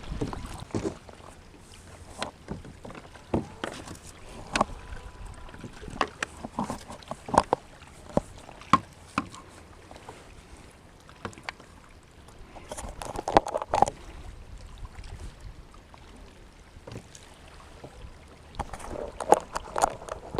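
Scattered clicks, taps and knocks of gear being handled aboard a fishing kayak after landing a bass, busiest about 13 seconds in and again near the end.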